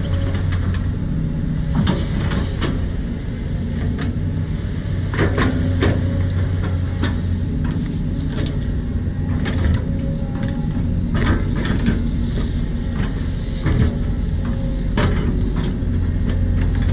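Cat 320D L hydraulic excavator's diesel engine running steadily under working load, with scattered knocks and scrapes as the bucket digs into and lifts soil.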